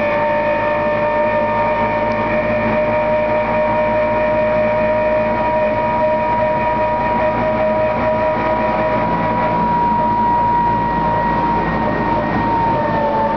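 ZiU trolleybus running, heard from inside: a loud, steady high-pitched whine of several tones from its electric drive, drifting slightly in pitch, over the rumble of the ride. This is the vehicle's notoriously terrible sound.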